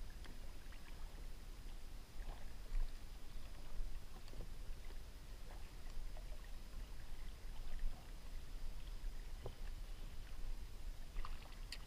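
Faint sound of a kayak on open water: a steady low rumble of water and light breeze against the hull and microphone, with a few small knocks and clicks from gear being handled.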